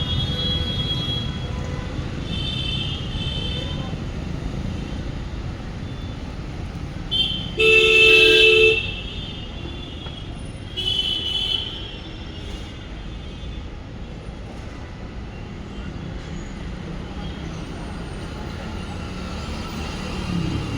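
Steady traffic rumble with a vehicle horn honking once, for about a second, about eight seconds in.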